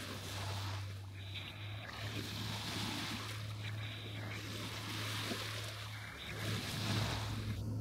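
Small waves washing in on a sandy beach, the surf's hiss swelling and easing every couple of seconds and loudest near the end, over a steady low hum.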